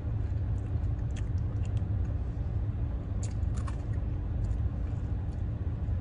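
Crunching and chewing of granola from an açaí bowl: scattered short, sharp crunches over a steady low rumble inside a car.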